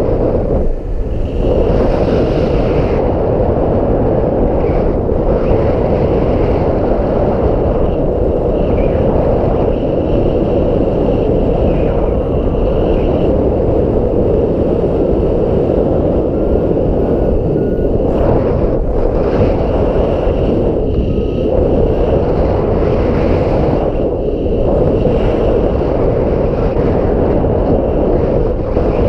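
Strong wind buffeting the microphone, a loud, continuous rumbling rush with a few brief lulls between gusts.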